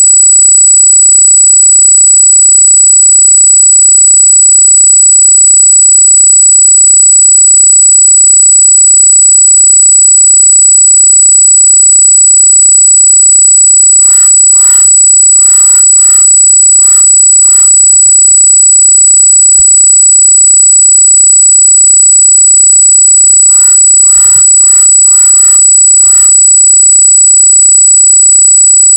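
A loud, steady high-pitched squeal: an electronic artefact in the trail camera's recording whose origin is unknown. Over it, a crow caws in two runs of about six calls, about halfway through and again near the end.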